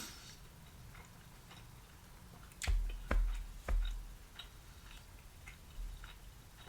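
Close-miked eating of sweet potato: soft chewing and small clicks, with three sharper taps, each with a low thump, a little under a second apart about halfway through.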